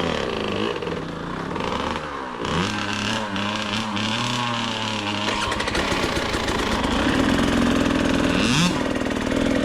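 Husqvarna TC65 small two-stroke dirt bike engine running and revving up and down several times, with a quick sharp rev near the end.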